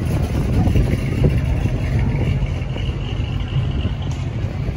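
Low engine and exhaust note of a 1969 Chevrolet Camaro pulling away slowly, fading gradually as it drives off.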